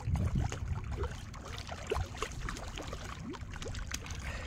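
A hooked cá dứa, a river catfish, splashing at the water surface as it is played on the line, in irregular small splashes and drips, louder in the first second.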